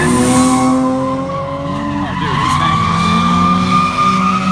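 Drift car's engine, a Nissan 350Z's VQ V6, held at high revs while its tyres screech through a sideways slide. The engine pitch dips about two seconds in, then climbs again.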